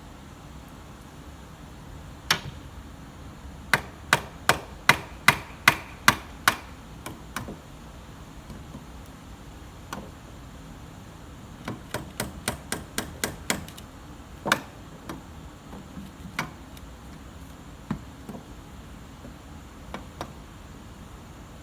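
Hand hammer blows: a run of about nine strikes, about three a second, then after a pause a quicker run of about ten, then single strikes every second or two.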